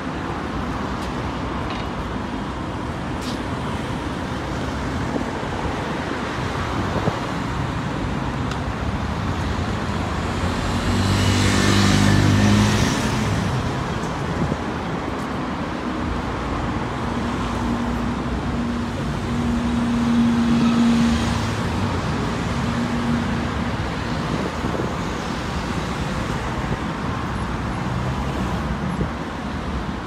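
Steady road traffic noise from a busy multi-lane road. A louder vehicle swells past about halfway through, and a few seconds later another vehicle's low engine hum rises and fades.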